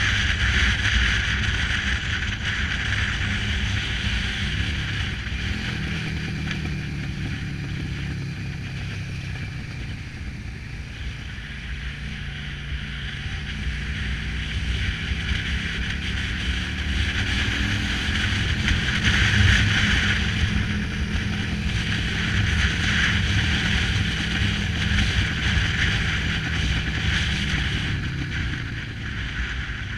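Cruiser motorcycle engine running while riding downhill, its note stepping and gliding up and down several times as the revs change. A steady rush of wind over the microphone runs alongside, strongest in the second half.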